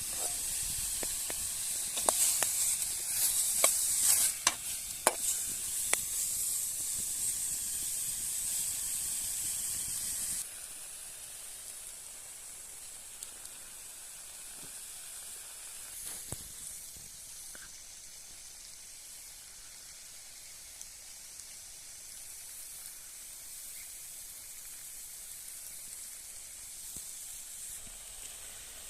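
Food frying in hot oil: a steady sizzle with sharp pops and crackles in the first few seconds. About ten seconds in it drops suddenly to a quieter sizzle.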